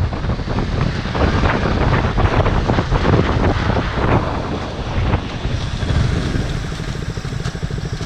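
Wind buffeting the microphone over a Yamaha R15 V3's single-cylinder engine as the motorcycle slows down. The wind rush eases about five seconds in, leaving the engine's steady low pulsing.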